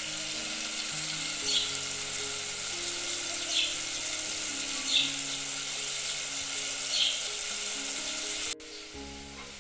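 Chopped ridge gourd sizzling in hot oil in an aluminium pot, being fried before any water is added, with four or five brief louder crackles. Soft background music plays under it, and the sizzle cuts off suddenly near the end, leaving only the music.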